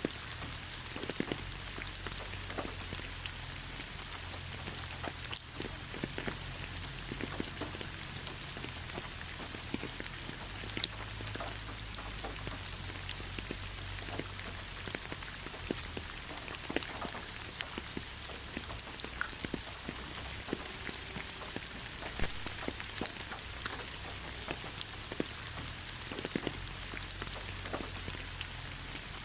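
Steady rain falling, an even hiss with many small scattered drips and taps, over a low rumble.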